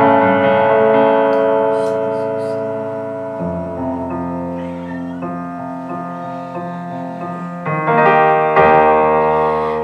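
Instrumental passage of a band's song: keyboard playing held chords that change about every four seconds over a low bass, with no singing.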